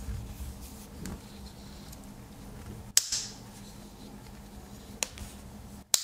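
Blades and tools of a Victorinox Tinker Swiss Army knife snapping shut against their springs: sharp metallic clicks about three seconds in and again about five seconds in, the first the loudest with a brief ring after it.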